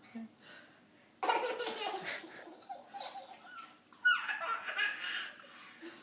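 Young child laughing hard in two long bouts, the first starting about a second in, the second a few seconds later opening with a high squeal.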